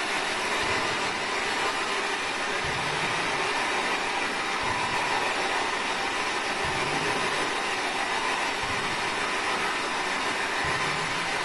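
Steady loud radio static hiss from a spirit box (ghost box) scanning through radio stations, with a faint low thump about every two seconds.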